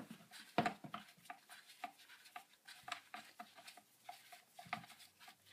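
Faint, irregular clicks and ticks of a screwdriver turning a small screw out of a Poulan 1800 chainsaw's housing.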